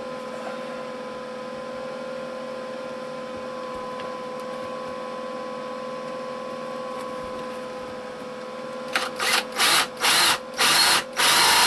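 Cordless drill boring a hole through a wooden frame piece: after a faint steady hum, the trigger is squeezed in about five short loud bursts from about nine seconds in, then held so the drill runs continuously near the end.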